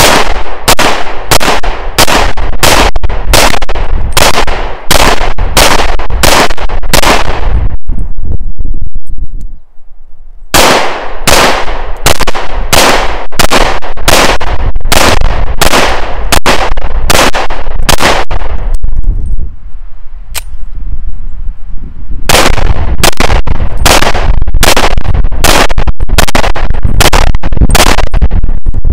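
Llama Max-1 .38 Super semi-automatic pistol firing in rapid strings of shots, about two a second, with short pauses between three strings.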